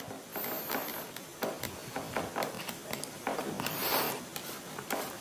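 Handwriting with a pen or marker: short scratching strokes and light taps in irregular bursts.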